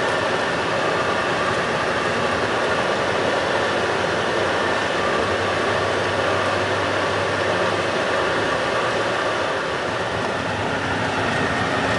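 Steady engine and road noise of a moving tour bus, heard from inside the cabin.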